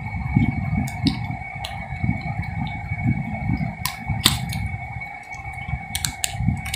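Scissors cutting the clear plastic shrink-wrap on a sealed pack of banknotes, with the wrap being handled: a string of sharp snips and crackles over low rubbing and bumping. A steady high hum runs underneath.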